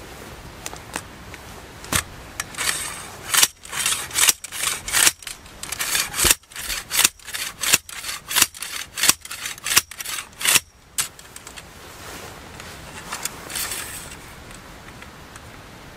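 A metal lantern pole jabbed repeatedly into dry turf: a rapid run of about fifteen sharp crunching strikes with a clink of its metal fittings, starting about two seconds in and stopping near eleven seconds.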